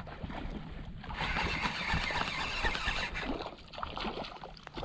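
Small waves lapping and sloshing right at the camera, held just above the bay's surface, with a low wind rumble on the microphone. It dips quieter for a moment near the end.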